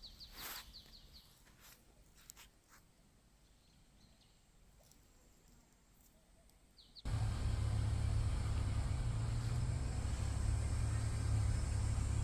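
Faint chirps of small birds in a quiet garden. About seven seconds in, a sudden loud, steady low rumble with a hiss takes over, its source unclear.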